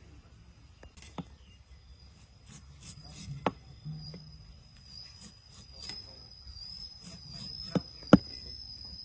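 Heavy cleaver cutting a peeled bamboo shoot held in the hand: light scraping strokes and a few sharp chops, two close together near the end. A steady high insect buzz runs underneath from a couple of seconds in.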